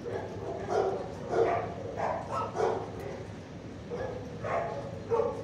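Other shelter dogs barking and yipping in short, scattered barks, with a quick run of three about two seconds in.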